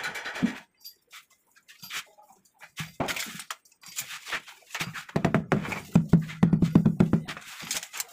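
Knocks and taps on a large ceramic wall tile as it is set into place, with a quick run of rapid tapping starting about five seconds in and lasting a couple of seconds.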